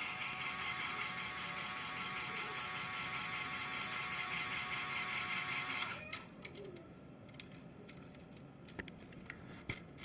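Lego Power Functions large motor whining through the plastic gear train of a Lego Technic winch as it reels in the line. It stops suddenly about six seconds in, leaving faint clicks and taps of plastic parts.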